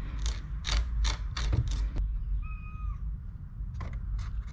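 Hand body reamer twisting into a polycarbonate (Lexan) RC car body: a run of short scraping strokes, then a brief thin squeak about two and a half seconds in.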